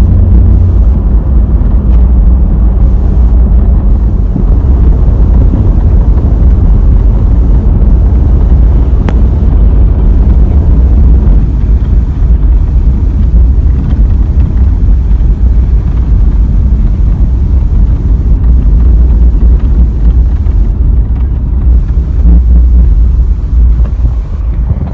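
Moving vehicle with wind buffeting the microphone: a loud, steady low rumble with no pitched engine note.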